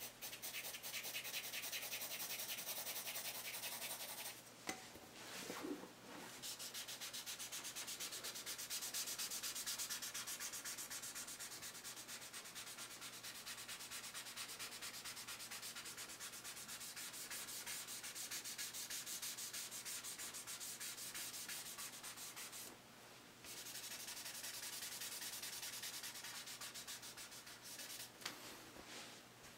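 Fast, steady back-and-forth rubbing on sketchbook paper as graphite shading is blended by hand, a scratchy rasp with short pauses about four seconds in and again about twenty-three seconds in, dying away near the end.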